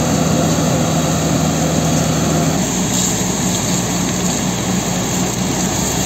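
Fire truck engine running at steady high revs to drive its water pump, with the hiss of water jets spraying from the hose and roof monitor. About two and a half seconds in the engine note changes to a pulsing beat.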